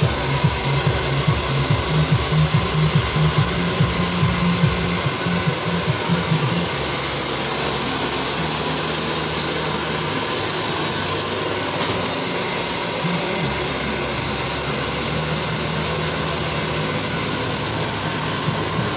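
Hand-held hair dryer blowing steadily, with a low hum that wavers for the first few seconds and then settles.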